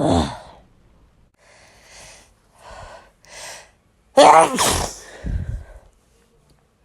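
A person sneezing: the tail of one sneeze at the start, a few short, quiet gasping breaths in, then a sudden loud sneeze about four seconds in.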